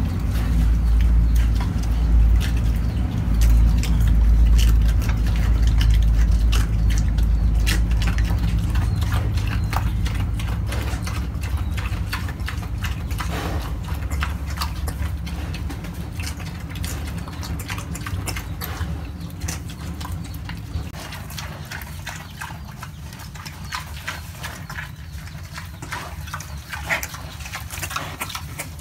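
A pig eating green plant stems, chewing and crunching with many short, sharp crunches. A low rumble sits underneath, loudest in the first half and fading away.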